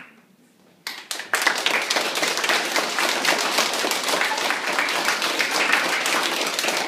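An audience clapping, starting about a second in and going on as dense, steady applause.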